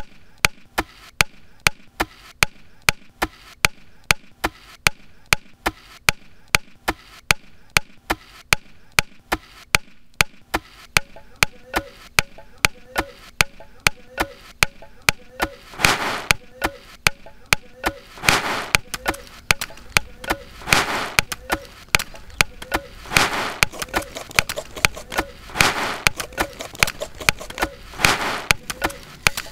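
Everyday cooking sounds cut into a steady beat: sharp wooden chops or knocks about twice a second. From about 11 seconds in, a short pitched tap joins them, and from about 16 seconds a rasping swish comes every two and a half seconds.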